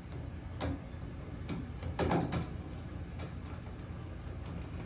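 A screwdriver and metal parts clicking and scraping at a clothes dryer's power-cord terminal block: a sharp click under a second in, then a louder scraping rattle about two seconds in, with a few light ticks, over a steady low hum.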